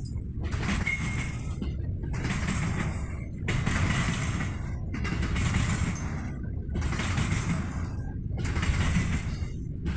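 Container freight train's wagons rolling past on the rails: a steady low rumble of wheels, with a higher rattle and hiss that swells and drops out about every one and a half seconds as each wagon goes by.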